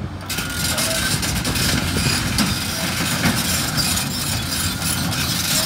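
Caterpillar excavators' diesel engines and hydraulics running steadily, a dense hiss that comes in suddenly at the start with faint whines over a low rumble.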